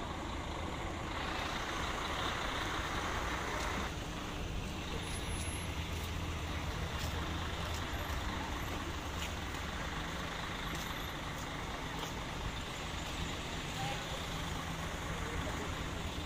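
Steady outdoor background rumble and hiss, with no single event standing out.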